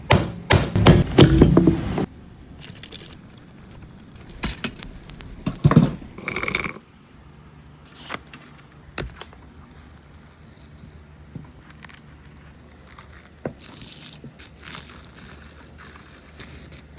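Metal parts of an espresso machine clattering, clinking and scraping as it is dismantled. A dense burst of rattling comes at the start and another about six seconds in, then scattered light clicks and scrapes.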